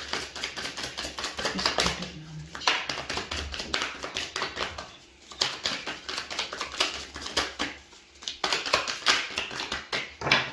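A deck of oracle cards shuffled by hand in several bouts, a rapid clicking patter of card edges with short pauses between bouts, as the reader shuffles waiting for a card to jump out.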